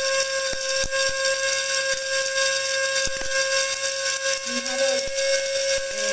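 Small electric blade spice grinder running at full speed with whole spices inside: a steady high motor whine over the hiss of the spices being ground.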